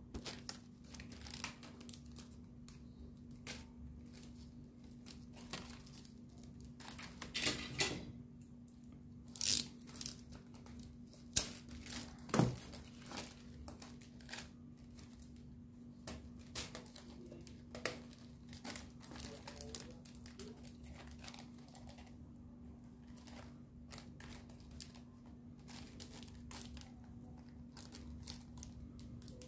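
Crinkling and rustling of clear plastic wrapping and the thin printed wings of rubber-powered ornithopter toys being handled, with scattered small clicks from their plastic fittings. A few louder crinkles come near the middle.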